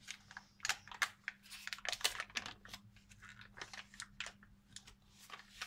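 Irregular crinkling and rustling, like paper or a plastic wrapper being handled, over a faint steady hum.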